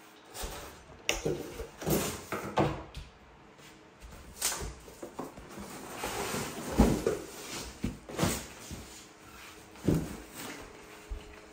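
Irregular knocks, clacks and rustling of objects being handled and set down, about a dozen sharp knocks spread unevenly, with a longer rustle around the middle.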